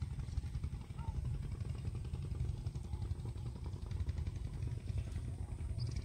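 JCB 3DX backhoe loader's diesel engine running steadily nearby, a low even rumble.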